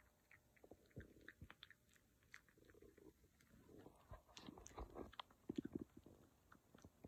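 Faint, close-up chewing and mouthing sounds from a cavapoo puppy, a scatter of small wet clicks that grow denser and a little louder about four seconds in.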